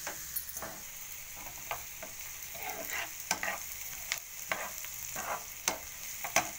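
Chopped onion, capsicum and carrot sizzling in oil in a frying pan while a steel spoon stirs them, with a steady hiss and frequent irregular scrapes and clicks of the spoon against the pan.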